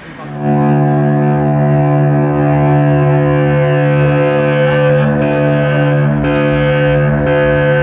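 Electric guitar and bass strike a loud, sustained chord about half a second in and let it ring on as a steady drone, with a few short percussive hits over it, at the start of a live rock band's song.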